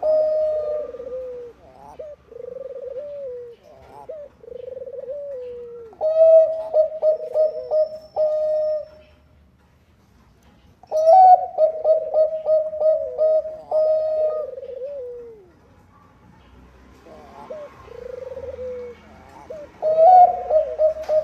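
Zebra dove (Bangkok-bred perkutut) singing: repeated loud cooing phrases, each a quick run of rolling notes that ends in a falling tail. Softer falling coos come between the phrases, with a short pause about halfway through.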